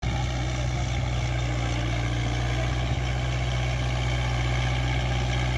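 Kubota MU4501 tractor's four-cylinder diesel engine running steadily at a constant pitch while it drives a rotary tiller through the soil.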